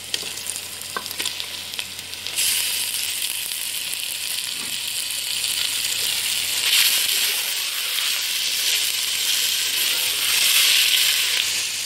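Raw boneless chicken pieces tipped into hot oil with browned onions and ginger-garlic paste. The sizzle jumps up sharply about two seconds in, then carries on strongly as the chicken fries and is stirred.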